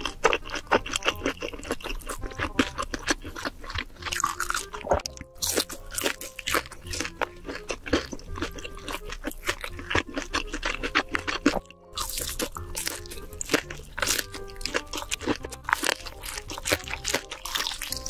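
Close-miked crunching and chewing of sauce-glazed fried chicken: a dense run of crisp crackles as the crust is bitten and chewed, with background music underneath.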